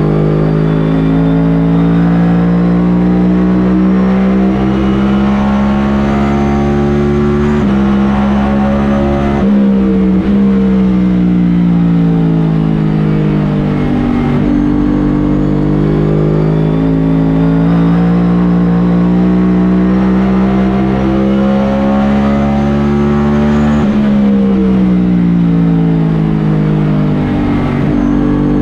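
NASCAR Cup Series car's pushrod V8 heard from inside the car at racing speed. Its pitch climbs steadily down each straight and drops sharply twice, about 14 seconds apart, as the driver lifts for the corners.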